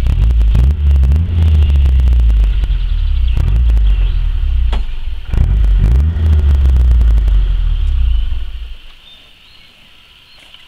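Loud low rumble with scattered crackles and knocks, dying away about eight and a half seconds in and leaving only a faint steady high hum.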